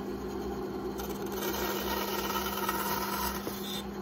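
Steady machine hum, an even drone with a constant tone and no cutting or starts and stops.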